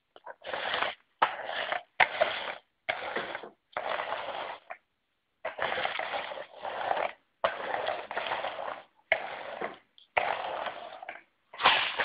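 Manual push carpet sweeper with two roller brushes, pushed back and forth over a rug and picking up scattered rice grains. Each push or pull gives a noisy swish, about one stroke a second, with a short pause about five seconds in.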